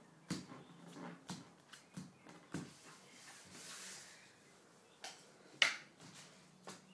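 Paper stickers being handled and set down on a wooden table: a series of light taps and clicks, with a soft sliding rustle in the middle and a sharper tap near the end.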